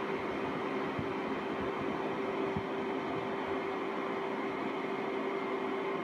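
A 2 hp, 60 Hz electric motor running steadily: an even whirring noise with a constant hum tone over it.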